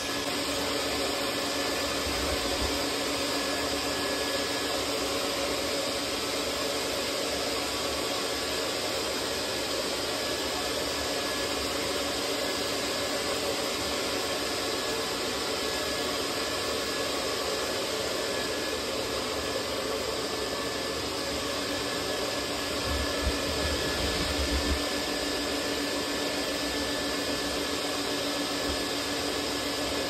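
Duct-cleaning vacuum running steadily, drawing air and lint through a large ribbed flexible hose clamped to a dryer vent. A few low bumps about three-quarters of the way through.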